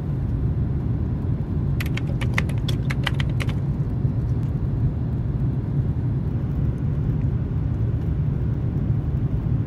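Jet airliner cabin noise on the landing approach: a steady low rumble of engines and airflow. About two seconds in comes a quick run of light clicks lasting a second and a half.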